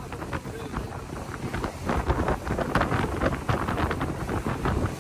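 Wind buffeting the microphone aboard a speedboat under way, over a steady low rumble from the boat running.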